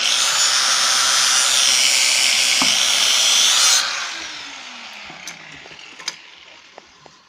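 Handheld power tool running at full speed on metal, then switched off almost four seconds in and winding down with a falling tone, followed by a few light clicks.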